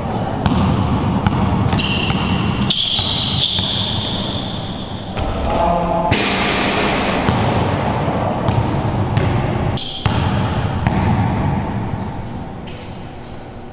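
A basketball dribbled hard on an indoor court floor, with sneakers squeaking as the players cut, and a shot hitting the rim about six seconds in.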